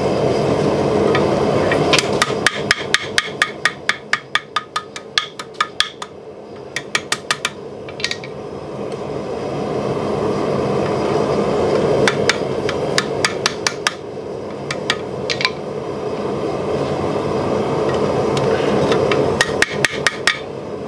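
Hammer strikes on red-hot steel over an anvil horn, shaping and truing the round eye of a forged bottle opener. The blows ring sharply, first in a fast run of about five a second, then in short groups with pauses between, over a steady rushing noise.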